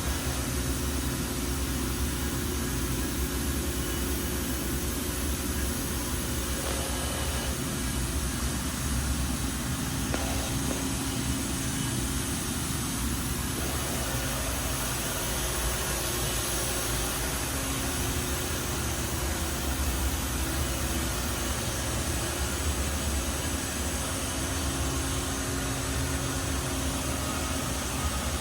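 Steady mechanical hum of running machinery, with a few level tones over an even hiss and no sharp events.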